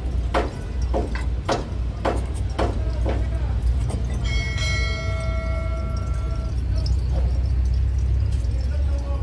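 A steady low rumble with a run of regular sharp clicks, about two a second, for the first three seconds. Then a single bell-like chime is struck and rings out for about two seconds: the sound effect of a subscribe-button animation.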